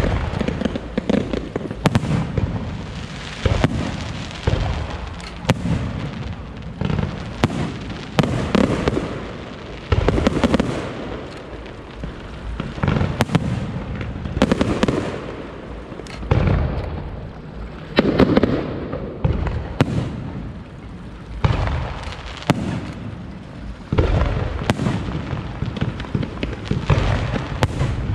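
Aerial fireworks show: shell after shell bursting overhead, deep booms every second or two with crackling and sizzling between them.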